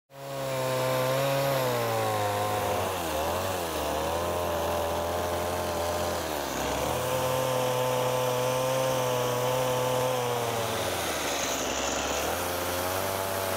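Gasoline chainsaw running and cutting into a wooden tree trunk. Its engine pitch holds steady, then drops and rises again a few times.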